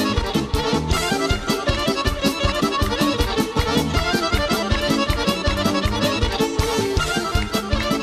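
Serbian folk orchestra playing an instrumental kolo live, with accordion leading a busy melody over a fast, steady beat.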